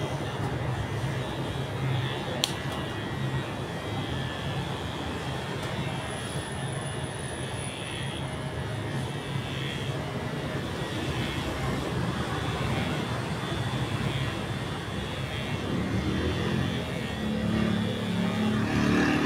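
Electric hair clippers buzzing steadily as they cut a boy's short hair, with one sharp click a couple of seconds in. The buzz grows louder near the end.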